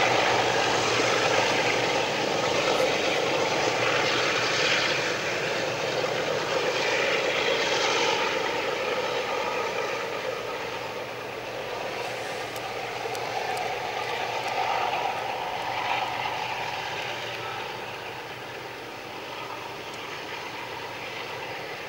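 Banking diesel locomotives working hard under load as they push a loaded grain train up a grade, a steady engine drone that slowly fades as they draw away.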